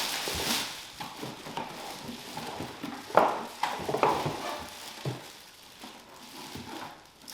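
Packaging crinkling and rustling as a bidet seat is unpacked from its box, with a few louder crackles about three and four seconds in.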